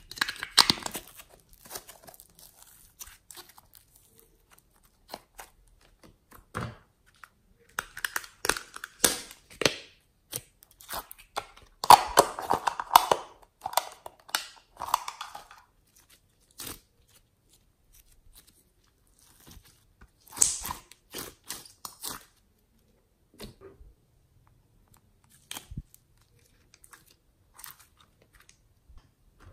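Hands handling small plastic slime containers: plastic clicking, crinkling and crackling in irregular bursts, loudest about halfway through.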